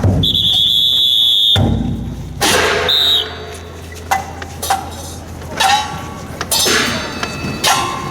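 A long, steady whistle blast near the start and a short one that drops in pitch about three seconds in, among sharp loud hits and shouts.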